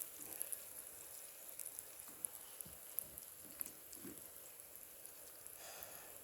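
Faint campfire crackling: a soft steady hiss with scattered small pops and snaps.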